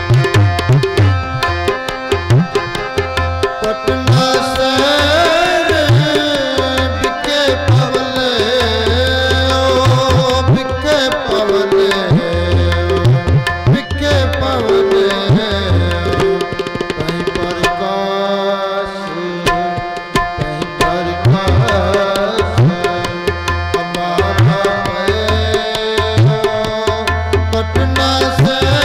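Sikh kirtan: harmoniums sustaining chords and melody, with tabla beating a steady rhythm whose bass drum strokes bend in pitch. From about four seconds in, a man's voice sings a wavering line over them.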